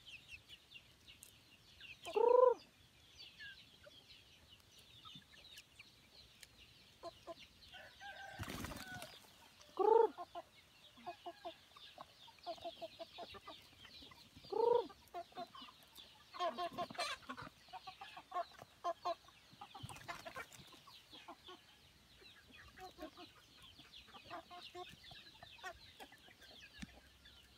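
A flock of free-range village chickens clucking as they feed, with three louder single calls about two, ten and fifteen seconds in, over a steady high chirring.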